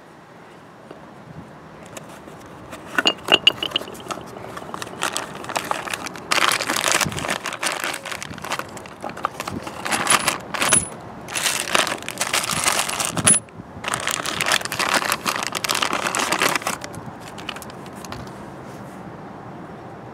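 Clear plastic bag of small hardware for a new suspension ball joint being handled: crinkling plastic, with loose nuts and washers clinking against each other inside, from about six seconds in until about seventeen.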